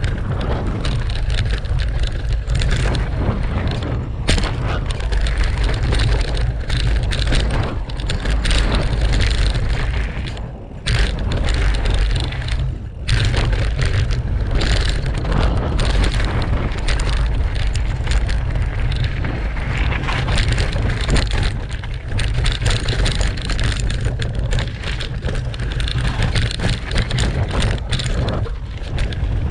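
Mountain bike riding fast down a dirt and rock trail, heard from a handlebar-mounted GoPro: a continuous rumble of tyres over dirt and stones with wind on the microphone and frequent knocks and rattles from the bike. The noise briefly drops twice, about ten and thirteen seconds in.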